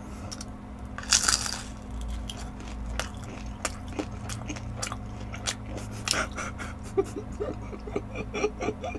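Close-miked biting and chewing of tangsuyuk, Korean sweet-and-sour fried pork, with many sharp mouth clicks and crunches. A louder bite comes about a second in.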